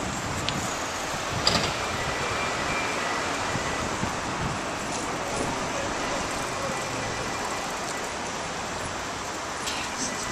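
Steady city street noise of road traffic, with a few faint clicks.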